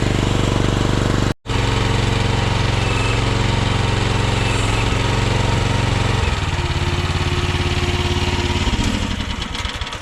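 Chinese mini excavator's Briggs & Stratton gas engine running at high speed, with a momentary break in the sound about a second and a half in. About six seconds in the engine note drops lower, and it fades near the end.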